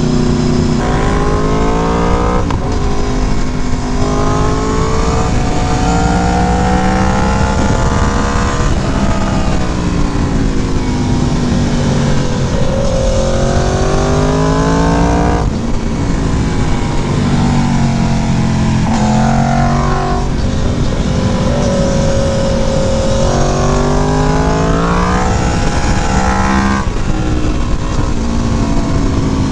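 Aprilia Tuono V4 Factory's V4 engine through a Leo Vince exhaust, pulling hard through the gears: the note climbs and drops back again and again, with sharp drops at the shifts and as the throttle closes. Wind rush over the microphone runs under it.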